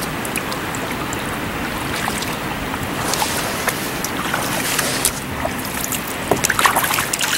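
Sea kayak being paddled across calm water: a steady wash of water with paddle blades dipping and water trickling off them. The splashes come more often near the end.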